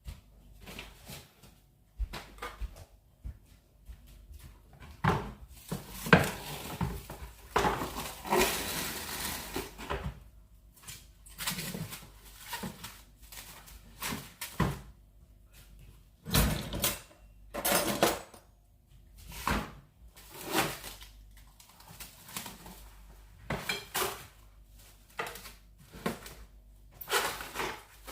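Kitchen clatter: pots, dishes and cutlery knocking and scraping in irregular bursts, with a longer stretch of noise around the middle.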